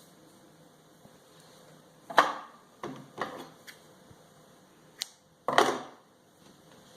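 Handling noise from threading a serger: a few brief rustling swishes of thread and fingers against the machine, with a sharp click about five seconds in.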